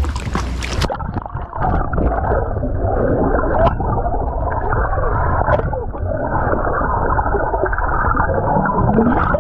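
Water noise at the surface for about a second, then the muffled sound of a camera plunged underwater: bubbles gurgling and water churning around swimmers kicking with fins.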